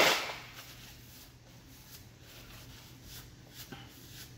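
A short, breathy rush of air as a man presses his hands over his face, fading within about half a second. Then quiet room tone with a faint, steady low hum and a few small clicks.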